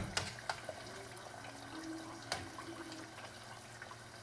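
Yam fries bubbling gently in oil in a stainless saucepan during a low-temperature first blanch at about 220 degrees: a steady fizz with scattered small crackles. A few sharp clicks of metal tongs against the pan, the loudest about two seconds in.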